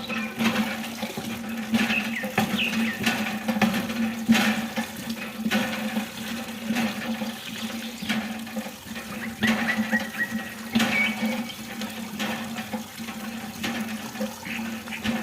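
Water running and splashing steadily from a miniature water pump, with a steady low hum underneath.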